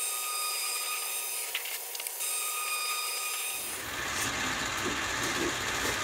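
Lockformer roll-forming machine running with a sheet of duct metal feeding through its five stations of rollers. The metal scrapes and rubs as it passes through the rolls, which fold a Pittsburgh lock along its edge, over a steady machine whine, with a few clicks about two seconds in.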